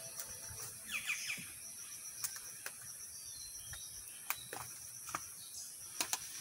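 Rural outdoor ambience: birds chirping, with a few quick falling chirps about a second in, over a faint high pulsing trill. Scattered light clicks and taps.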